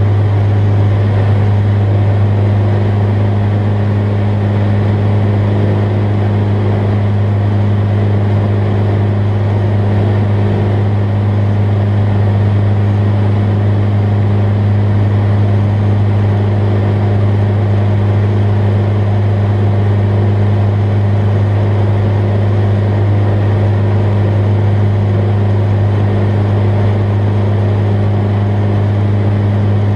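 Jabiru light aircraft's engine and propeller running steadily in flight, heard inside the cockpit as a constant low drone.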